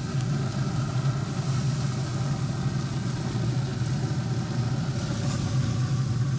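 Steady motor hum from a Pit Boss pellet grill running with its lid open, the grill's fan droning at an even pitch.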